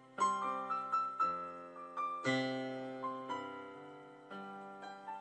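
Piano playing a slow instrumental interlude: struck chords and single melody notes that ring and fade between strikes.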